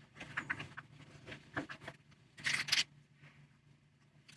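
Faint handling noises of leather and tools on a cutting mat: scattered soft scrapes and rustles, a brief louder scrape about two and a half seconds in, and a sharp click near the end.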